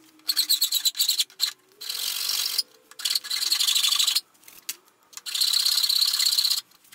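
Flat hand file rasping across a cast aluminium motorcycle triple clamp. A few short quick strokes come first, then three longer strokes of about a second or more each.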